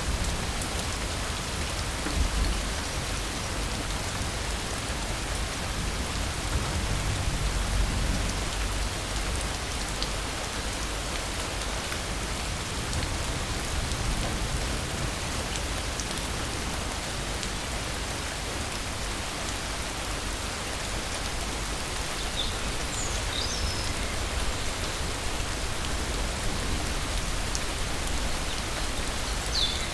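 Steady rain falling, an even hiss of drops on surfaces, with low rumbles of thunder during the first eight seconds or so.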